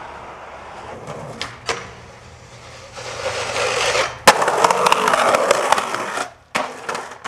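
Skateboard popping onto a metal stair handrail with a loud sharp clack and sliding down it with a rough, gritty scraping for about two seconds, which stops abruptly, followed by a few knocks of the board meeting the ground. A couple of lighter clicks come a little over a second in.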